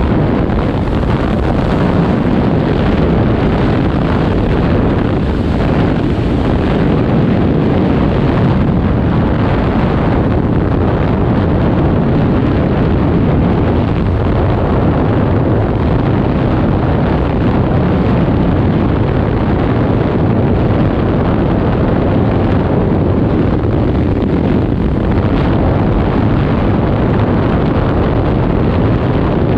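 Freefall wind rushing over a skydiver's helmet-camera microphone: a loud, steady, deep rush that does not change.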